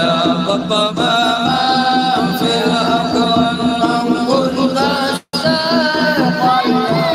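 A group of men chanting an Arabic devotional song together, without instruments, a melodic line of sung notes rising and falling over the steady voices of the group. The sound cuts out for a split second about five seconds in.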